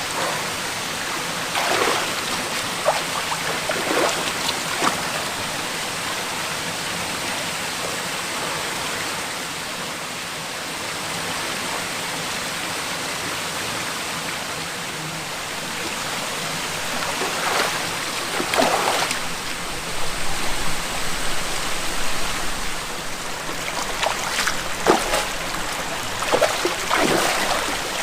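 Mountain stream rushing steadily over rocks. A few short, louder sounds stand out on top of it, most of them in the last third.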